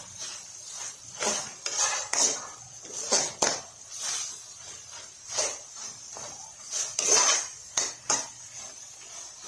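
A cooking utensil scraping and knocking against a pot in irregular strokes as a thick stew is stirred while its sauce cooks down.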